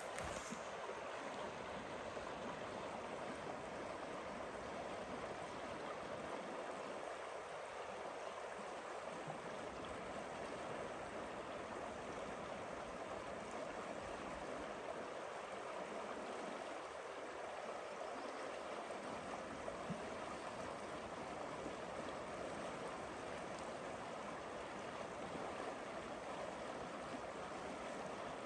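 Forest river water rushing steadily.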